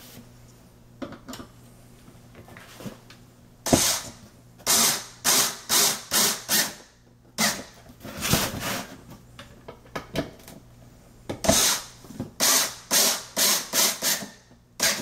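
Handheld electric screwdriver driving metal anchor screws into a drawer front, run in many short spurts of under a second each, in groups with brief pauses between.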